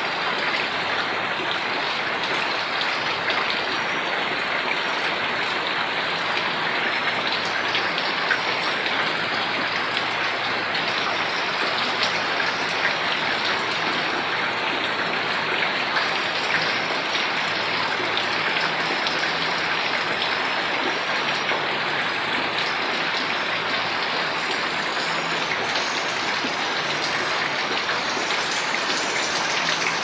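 Heavy rain falling steadily on house roofs and running off the eaves, a dense even hiss full of fine drop impacts.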